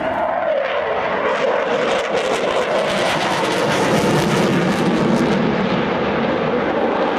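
Eurofighter Typhoon fighter jet's twin EJ200 turbofans running at high power as it flies past, with a tone that sinks in pitch over the first couple of seconds and a crackling through the middle.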